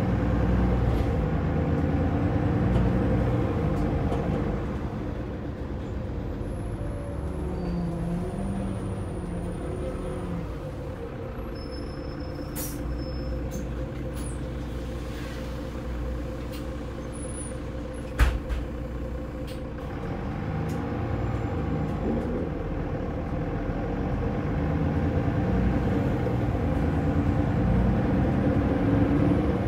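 Mercedes-Benz OM906LA straight-six diesel of a Citaro O530 bus, heard from inside the rear of the saloon. It runs louder at first, settles quieter for about fifteen seconds with a single sharp click near the middle, then builds up again as the bus moves off.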